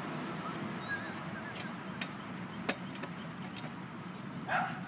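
Plastic purple martin gourd clicking twice as it is snapped onto a metal arm of the gourd rack, over a steady background hiss. A dog barks once near the end.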